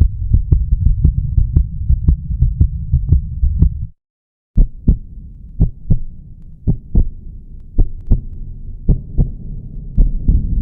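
Bass-heavy background music with a pulsing low beat. It cuts out abruptly about four seconds in, then comes back with a sparser beat over a low drone.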